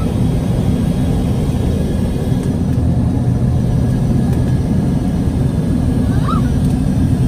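Steady low roar of cabin noise inside an Embraer ERJ145 climbing out after takeoff: its two Rolls-Royce AE 3007 turbofans at climb power, along with rushing airflow.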